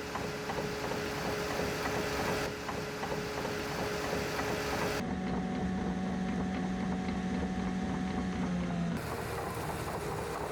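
Bulldozer engine running steadily, its engine note shifting abruptly a few times.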